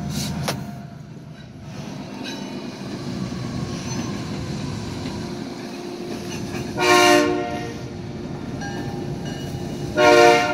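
Diesel switcher locomotive, an EMD SW1500, sounding its horn in two chords: one about a second long about seven seconds in and a shorter one near the end. Its diesel engine runs steadily underneath as it moves a covered hopper toward a road crossing, and the horn is the crossing warning.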